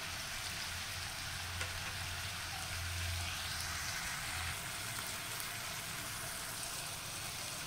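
Diced carrots, onion and yellow bell pepper sautéing in butter and olive oil in a pan: a steady, soft sizzle.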